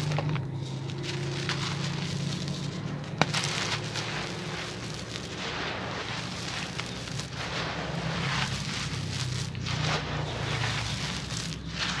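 Dry, crumbly red soil and grit poured and sifted from cupped hands onto a heap on dry ground: a continuous gritty patter and crackle of falling crumbs, with one sharp click about three seconds in.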